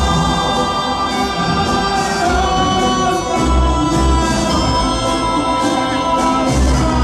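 A man singing over tango music, holding long notes.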